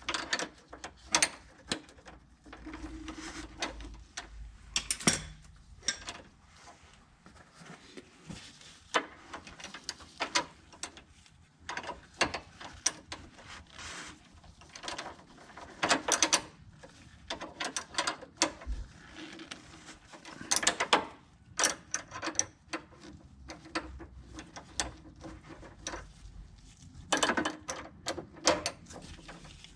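Hand tools working on a car's brake line fittings: irregular metallic clicks, knocks and clatter, some in quick runs of clicks.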